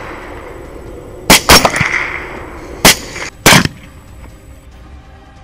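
Suppressed LWRC Six8 rifles firing a quick run of about four shots at hogs, a close pair just over a second in, then two more about three and three and a half seconds in, each followed by a rolling echo.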